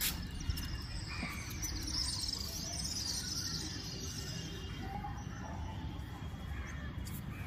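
Small birds chirping and twittering, busiest in the first few seconds, over a steady low background rumble.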